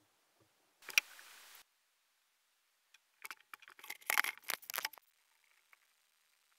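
A short hiss about a second in, then about two seconds of rapid clicks and knocks: things being handled and set down at a workbench vise.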